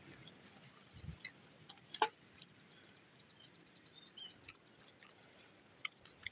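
Quiet outdoor ambience with scattered small clicks and snaps from the wood fire and sticks by the cooking pot, the sharpest snap about two seconds in, and a faint high bird chirp around four seconds in.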